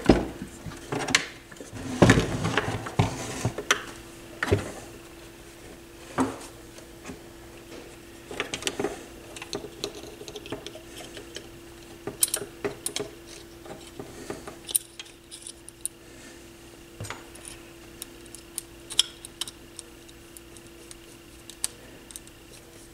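Metal turntable chassis and motor parts being handled and fitted together: scattered knocks, clicks and clinks, the heaviest about two to four seconds in, then lighter ones. A faint steady hum runs underneath.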